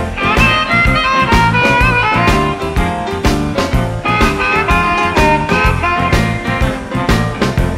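Electric Chicago blues instrumental: a lead melody line plays over bass and drums with a steady beat.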